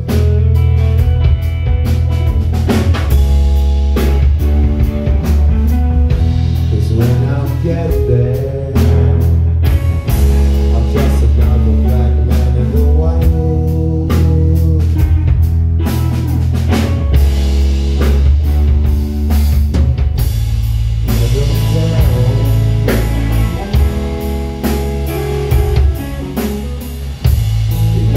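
Live rock trio playing: electric guitar, electric bass and drum kit, loud with a heavy low end and steady drumming.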